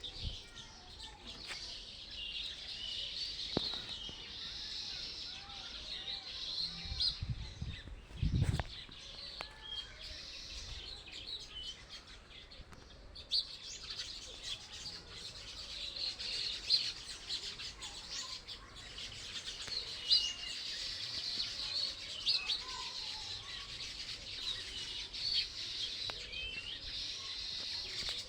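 A dense chorus of many small birds chirping and twittering without a break, with short rising and falling whistles over the top. There is a brief low bump about eight seconds in.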